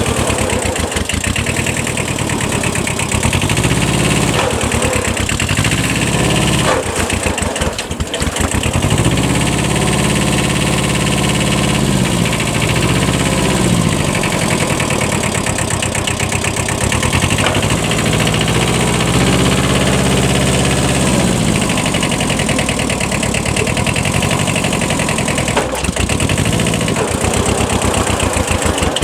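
Small diesel engine of a Kubota 5001 compact 4x4 tractor working hard, its speed rising and falling over and over as it is driven through a water-filled ditch, with a few sharp knocks along the way.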